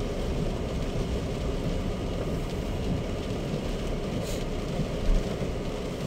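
Steady road and tyre noise of a Chery Tiggo 7 Pro SUV driving a wet, muddy forest track, heard inside the cabin. A brief hiss comes about four seconds in and a low bump about five seconds in.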